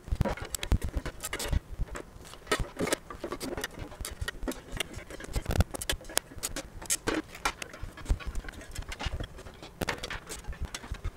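Irregular metallic clicks, clinks and knocks from an aluminum box being taken apart: screws turned out with a T-handle hex key, and aluminum panels lifted off and set down on the workbench.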